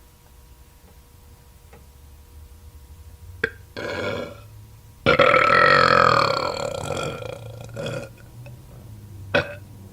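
A woman burping: a short burp about four seconds in, then a long, loud burp lasting two to three seconds from about five seconds in, its pitch falling as it goes.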